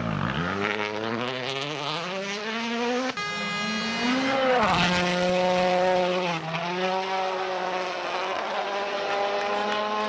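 World Rally Car turbocharged four-cylinder engines at full throttle. First one car accelerates with its engine note climbing steadily. After a sudden cut at about three seconds, a second car revs up, dips briefly, then holds a high, nearly steady note.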